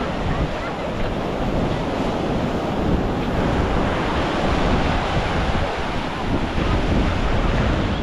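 Atlantic surf breaking and washing in over the shallows, a steady rushing hiss, with wind buffeting the microphone in a gusting low rumble.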